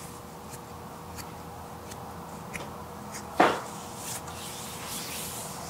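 Soft hand sounds of a foot oil massage, with faint scattered clicks, and one sharp knock about three and a half seconds in that is the loudest thing.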